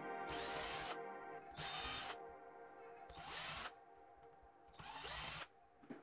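Cordless Parkside drill running in four short bursts of about half a second each, drilling into a clamped wooden strip, each burst opening with a rising whine.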